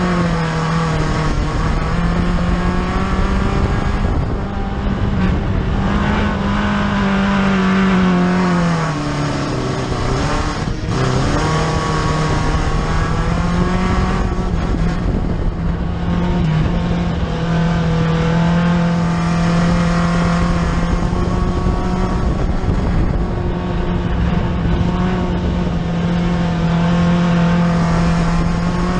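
Four-cylinder dirt-track race car's engine running hard, heard from inside the cockpit. Its note holds high and steady for long stretches and drops briefly as the driver eases off, most deeply about ten seconds in, before climbing back.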